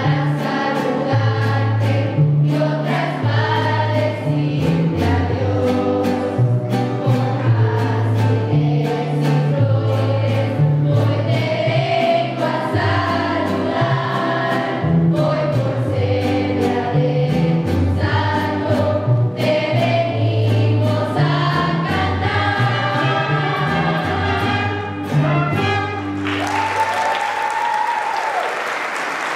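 Student mariachi ensemble of violins and guitars playing and singing together over a stepping bass line. The song ends about 26 seconds in and the audience breaks into applause.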